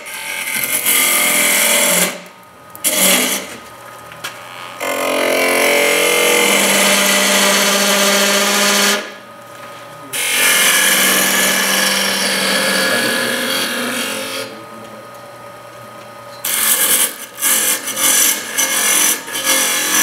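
Wood lathe running while a hand-held turning tool cuts a small spinning wooden finial. The cutting comes in several passes of a few seconds each, with short pauses between, over the lathe's steady low hum.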